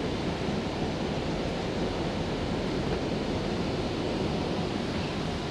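Steady running noise inside a Stockholm metro C20 car: an even rumble and hiss from the wheels on the rails and the train in motion.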